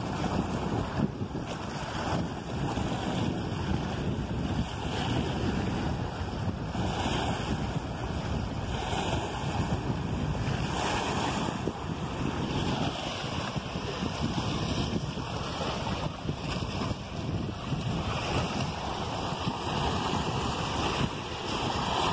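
Small waves on a reservoir lapping and splashing against stone riprap, swelling every couple of seconds. Wind buffets the microphone with a low rumble.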